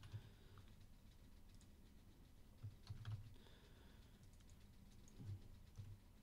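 A few faint, scattered clicks of a computer keyboard and mouse over near silence.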